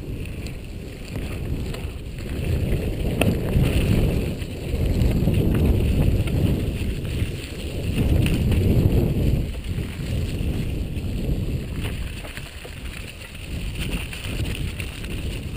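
Wind rumbling over a helmet-camera microphone, swelling and easing every few seconds, with occasional rattles and knocks from a mountain bike descending a rough, muddy, rocky track.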